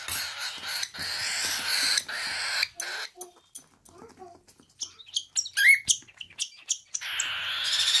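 Baby parrot chicks calling: a long stretch of harsh, raspy begging calls at the start and another from about a second before the end, with short chirps and clicks in between.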